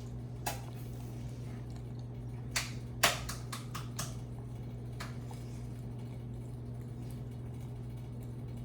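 Sharp, short crunches of crisp tortilla chips being bitten and chewed, about half a dozen, with a quick cluster about three seconds in that holds the loudest. A steady low electrical hum runs underneath.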